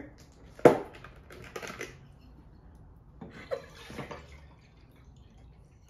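Cap of a large plastic juice bottle twisted open with a sharp click about a second in, then juice poured into a glass jar, with a few small clicks and knocks of the bottle and glass.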